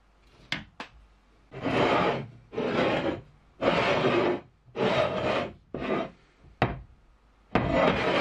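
Thick steel block scraped back and forth on a concrete floor: about six long rasping strokes. Two sharp clicks come just before the first stroke.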